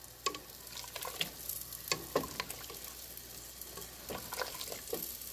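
Wooden spoon stirring a thick gumbo base in a stainless steel stockpot, with irregular soft knocks and scrapes against the pot over a steady faint hiss.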